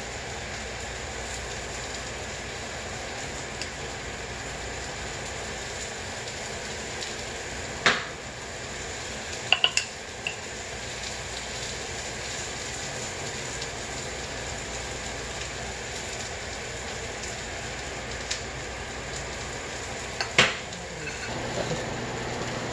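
Steady hiss of food cooking on the stove, with a few sharp clinks of kitchen scissors and utensils against ceramic bowls: once about a third of the way in, a quick cluster of three soon after, and once more near the end.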